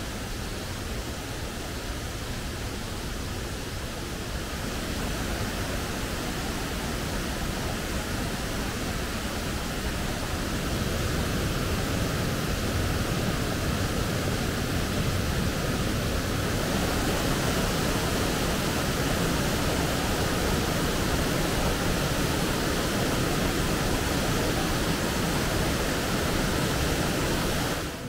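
Waterfall: a steady rush of falling water, growing somewhat louder over the first ten seconds or so.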